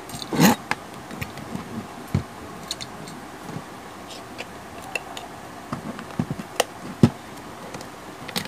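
Scattered light clicks, knocks and scrapes of small parts being handled on a workbench: a phone circuit board and metal PCB holder being moved, then a multimeter's rotary selector dial being clicked round, with the sharpest clicks near the end.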